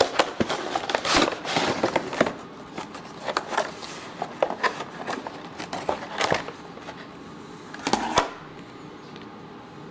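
Cardboard box and clear plastic packaging tray being opened and handled: crinkling, rustling and sharp plastic clicks, densest in the first two seconds, scattered after, with a louder burst of crackles a little past eight seconds in.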